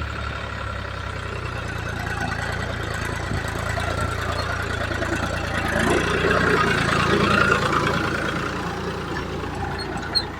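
Diesel engine of heavy machinery running steadily, swelling louder for a few seconds past the middle and then easing back, with one short sharp click near the end.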